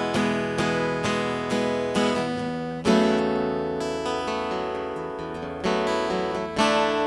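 Tagima California acoustic guitar strummed, heard through its pickup: chords struck and left to ring, changing every second or so, with a hard strum about three seconds in.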